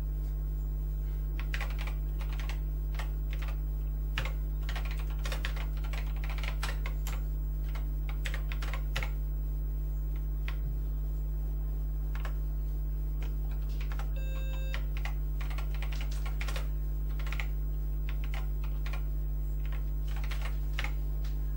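Keys typed irregularly on an Acorn Electron home computer's keyboard, one sharp click after another, over a steady low electrical hum. About two-thirds of the way in there is one short electronic beep, like the computer's start-up beep after a reset.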